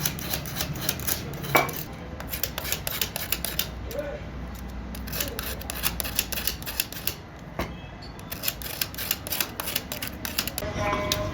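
Metal parts being worked by hand: rapid, irregular metallic clicking, clinking and scraping, with one sharper clink about a second and a half in.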